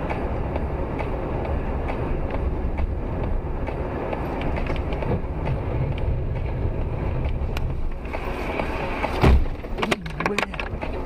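Steady road and engine noise of a moving car, then a loud crash impact about nine seconds in, followed by a few sharp knocks.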